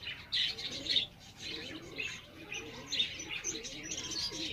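Small birds chirping in quick, irregular bursts, with the low cooing of domestic pigeons underneath.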